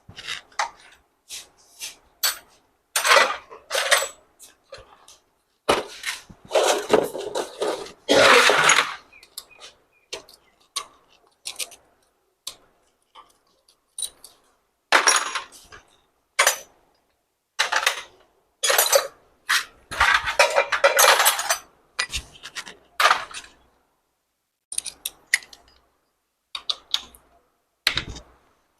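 Metal hand tools and motorcycle engine parts clinking and knocking together during a timing chain and roller replacement, with several longer scraping stretches.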